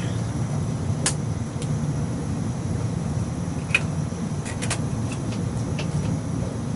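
Steady low machinery hum with a scattering of light clicks and knocks as the metal pole and camera mount of a draft-reading rig are handled. The sharpest clicks come about a second in and near the middle.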